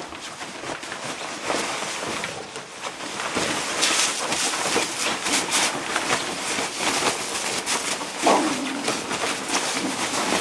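Dogs scuffling and tussling in a blanket, with steady fabric rustling and many small scrapes and knocks. There is one short falling vocal sound about eight seconds in.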